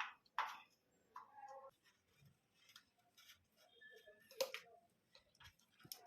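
Faint, scattered clicks and small rustles of hands handling the new fan capacitor's wires and small parts, with a louder click about four and a half seconds in.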